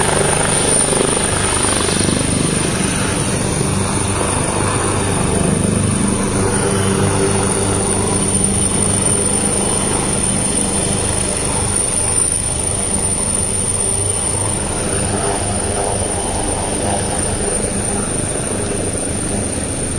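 Turbine helicopter coming in to land: a steady, loud beat of rotor blades and engine noise as it descends and touches down, easing off slightly toward the end.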